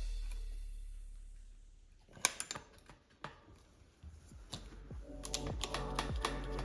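Background music fading out, then a few sharp clicks, then music fading back in.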